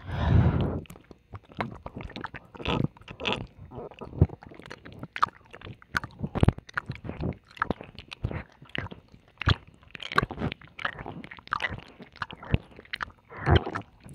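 Close-up wet mouth sounds of ASMR ear licking and kissing on a binaural microphone, worked on both ears at once: irregular smacks and clicks. A louder half-second rush comes right at the start.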